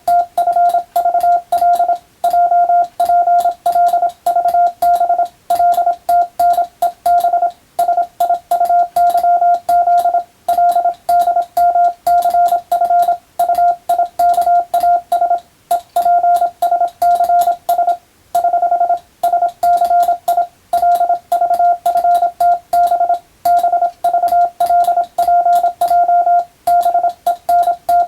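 Morse code (CW) sent as a single steady beeping tone, keyed fast in short and long elements with brief pauses between groups.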